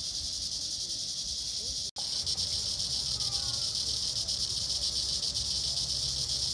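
Steady high-pitched buzzing of an insect chorus, with a low rumble underneath; the sound drops out for an instant about two seconds in.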